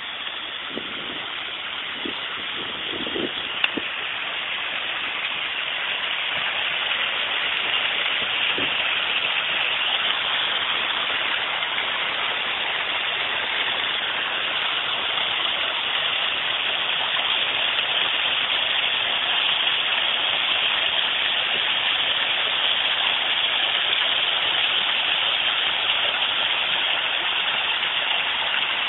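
Small waterfall splashing steadily as a continuous hiss of falling water, growing louder over the first few seconds and then holding steady, with a few faint knocks near the start.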